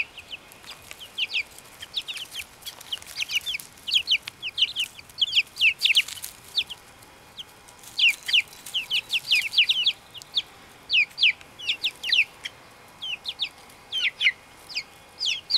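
A group of young chicks peeping: many short, high peeps that each slide down in pitch, coming thick and fast for most of the first ten seconds, then sparser.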